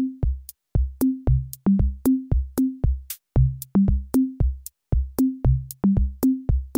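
Background music: an electronic drum-machine beat, about three bass-drum hits a second, with short bass notes stepping between a few pitches and light hi-hat ticks.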